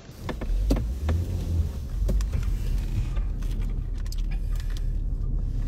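Low, steady rumble of a car running, heard from inside the cabin, with several sharp clicks and knocks in the first two seconds as the phone is handled and set in place.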